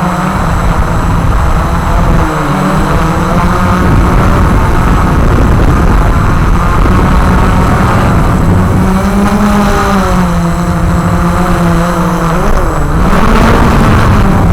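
Walkera QR X350 Pro quadcopter's brushless motors and propellers buzzing in flight. The pitch rises and dips as the throttle changes, over a steady low rumble.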